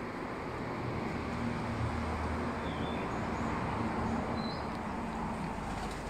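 Steady outdoor background noise with a low hum that grows a little louder in the middle, and a few faint, brief bird chirps.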